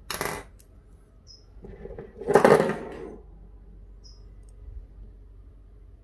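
Small metal torch parts clattering against a hard desk: a short sharp clack at the start, then a longer, louder metallic rattle about two to three seconds in.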